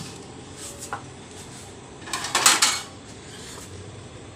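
Ceramic bowl knocking and scraping on a refrigerator shelf as it is set down: a light click about a second in, then a brief clatter about two seconds in.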